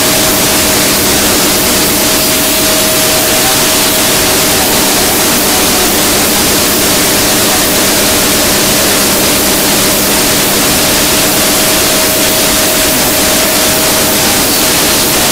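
CNC stone router spindle cutting through a marble slab under a water spray: a steady, loud grinding hiss with a constant whine from the spindle.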